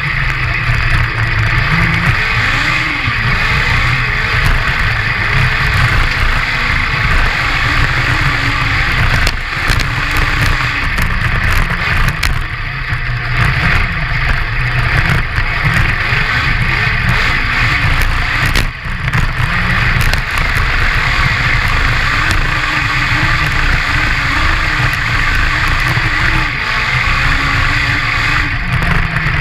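Honda CBR1000 inline-four motorcycle engine in a homemade crosskart buggy driving hard over sand. The engine pitch rises and falls with the throttle, over a constant rush of wind and tyre noise. The sound drops briefly twice, about nine and about nineteen seconds in.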